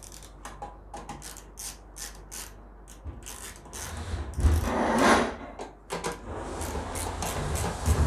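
Socket wrench ratcheting in quick clicks, about three to four a second, as an 8 mm socket tightens the lock nuts on a microwave magnetron's mounting flange. About four seconds in, a louder rubbing and scraping of the tool and metal comes in with a low rumble, then scattered clicks resume.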